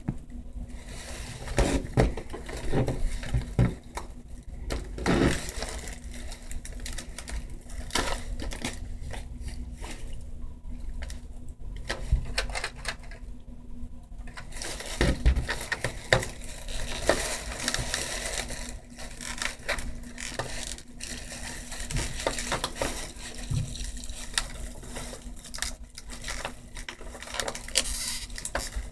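Small hard items being handled and set down close by: irregular clicks, taps and knocks, with a stretch of rustling from about halfway on, over a faint steady hum.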